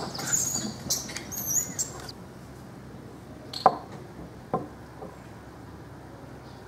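Vervet monkeys squealing with high, squeaky calls through the first two seconds, then two sharp knocks a little under a second apart.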